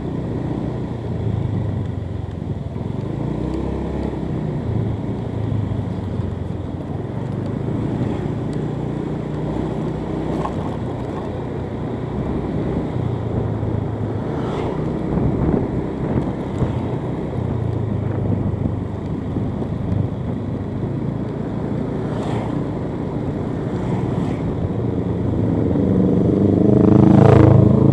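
Motorcycle engine running steadily while riding at low speed, with road and wind noise around it. The engine gets louder, with a pitched, changing note, near the end.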